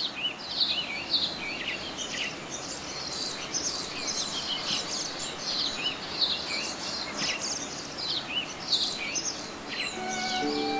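Many birds chirping and twittering at once in a busy, continuous chorus of quick high calls. Music begins to come in near the end.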